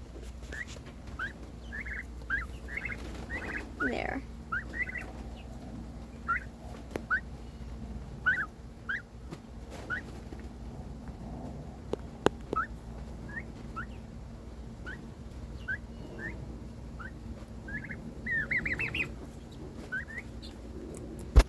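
Pet turkeys calling with short, high whistled peeps, roughly one a second, with a quick run of calls about eighteen seconds in.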